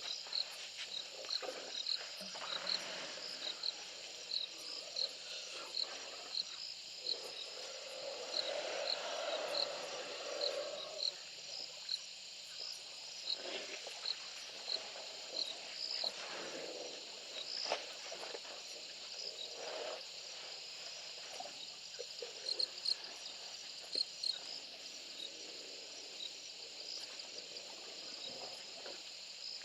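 Insects chirping at a waterhole: a steady high drone with short, high chirps repeating a few times a second, over softer irregular sounds lower down.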